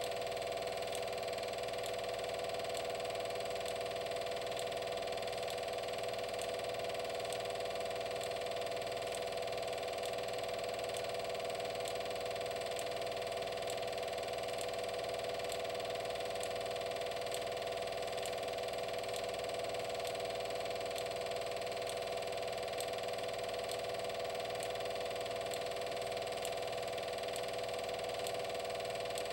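A steady mechanical hum with faint, even ticks about twice a second.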